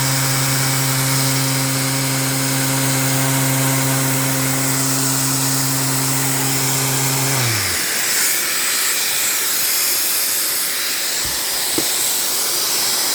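Electric sander running steadily on an epoxy-resin and wood board, then switched off about seven and a half seconds in, its hum falling in pitch as it spins down. A steady hiss carries on after the motor stops.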